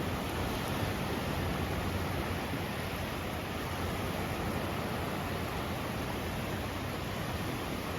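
Steady wind noise buffeting the microphone, a rushing hiss with a low rumble underneath.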